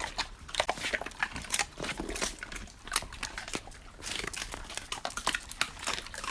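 Dogs gnawing on beef thigh bones: a quick, irregular run of sharp cracks and crunches as teeth bite down on the bone.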